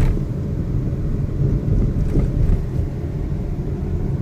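Car driving with a steady low grinding rumble, which the driver thinks may come from one of the wheels.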